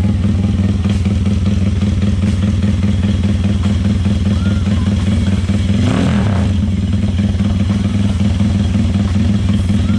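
Motorcycle engine idling through a newly fitted aftermarket exhaust, loud and mostly steady, with one brief change in the note about six seconds in, likely a small blip of the throttle.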